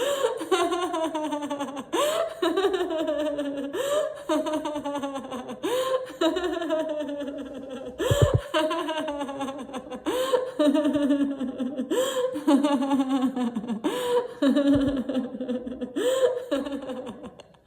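A woman laughing loudly in repeated bouts of deliberate laughter-yoga laughter, each bout starting high and sliding down in pitch, about one every one and a half to two seconds.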